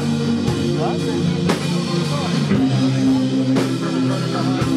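Live rock band playing a slow, heavy, grungy tune: held, droning guitar chords over a drum kit, with a drum and cymbal hit about once a second.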